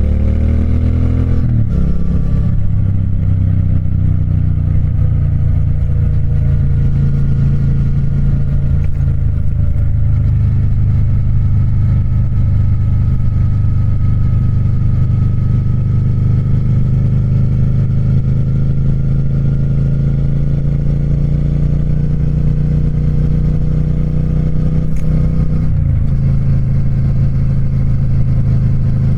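Triumph Speed Twin parallel-twin engine running under load. It breaks sharply in pitch as a gear is changed about a second and a half in, then pulls steadily with its pitch slowly rising. Near the end it dips and picks up again with another shift.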